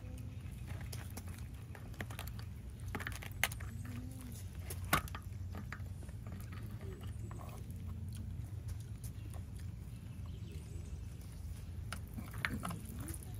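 Metal spoons and a fork scraping and clicking against roasted beef marrow bones as the marrow is scooped out, with a couple of sharper clicks around three and a half and five seconds in. A steady low hum runs underneath.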